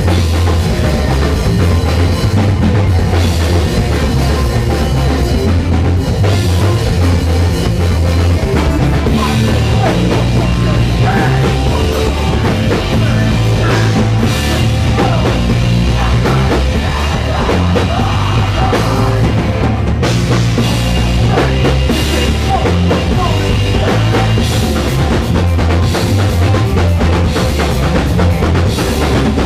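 Live heavy rock band playing loudly: drum kit, distorted guitars and bass, with a heavy low end and dense drum hits.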